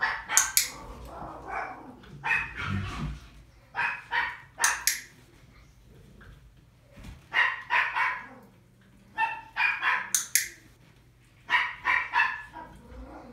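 Miniature Pinscher puppy barking in short, high yappy barks, a few at a time, in about six bursts with quiet gaps of a second or two between them.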